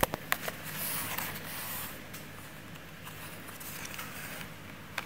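Plastic blister pack and card of a Hot Wheels toy being handled and turned over: a few sharp plastic clicks in the first half-second, then crinkly rustling, quieter handling, and one more click near the end.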